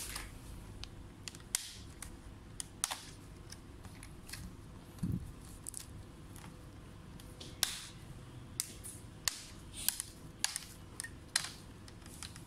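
Sharp plastic clicks and snaps at irregular intervals as the screen bezel of an Asus FX504GD laptop is pried off its lid, its retaining clips letting go, with a duller thump about five seconds in.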